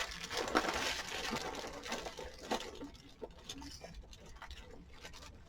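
Cardboard jigsaw puzzle pieces being handled and shuffled: a rustling with many small clicks and taps, busiest in the first couple of seconds, then sparser, fainter clicks.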